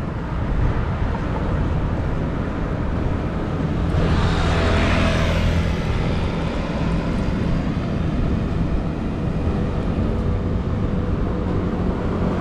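City road traffic heard from a moving bicycle, with steady wind rumble on the microphone. A motor vehicle passes close about four seconds in, rising and then fading.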